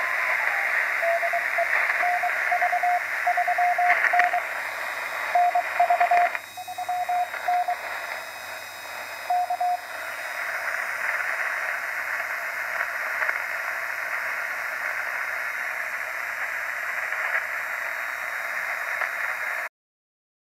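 ARC-5 command set receiver tuned to a CW station: a beep tone keyed on and off in Morse code dots and dashes over steady static hiss. The Morse stops about halfway through, the static runs on, then cuts off abruptly about a second before the end.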